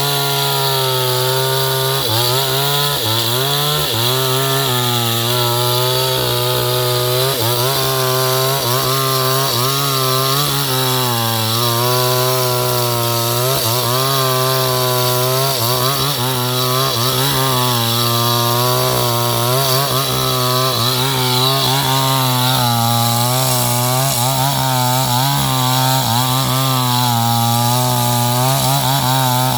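New West 628 two-stroke chainsaw running at high speed, its engine note dipping and rising again and again as it works through wood in a tree-felling cut.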